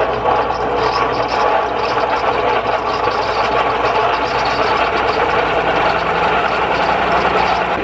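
Air-conditioner condenser fan motor running with a loud, steady, rough mechanical noise from its worn, dry bearings, which the owner judges beyond redemption after years without lubrication.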